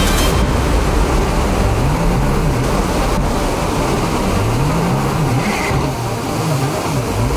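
Mini jet boat's engine revving up and down, its pitch rising and falling again and again with the throttle, over the steady rush of whitewater rapids.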